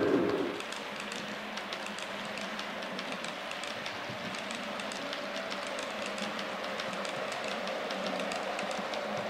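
Model train running slowly on the layout: a faint steady motor whine with a regular light clicking of wheels over the rail joints. A louder hum fades out in the first half second.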